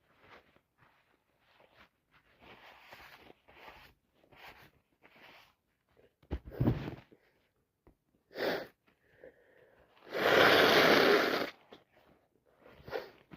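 A person with allergies in a sneezing fit: short sniffs and breaths, then sharp sneezes about six and a half and eight and a half seconds in. The loudest is a long noisy burst about ten seconds in, and a smaller one comes near the end.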